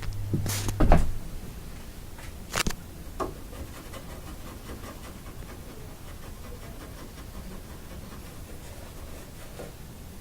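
Handling and play noises around a house cat: a couple of thumps about a second in, then two sharp clicks, followed by faint rustling and scratching.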